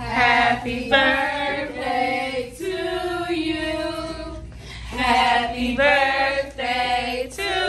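A group of women and small children singing together in unison: short sung phrases with held notes and one longer held note midway.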